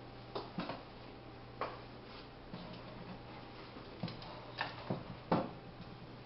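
Irregular light taps and clicks, about ten, from brush and tools being handled at a painting easel, the loudest one near the end, over a steady low hum.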